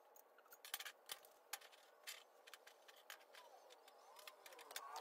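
Scattered light metallic clinks and knocks of steel angle iron being set down and shifted on a steel welding table, with quiet between them. A faint wavering tone starts near the end.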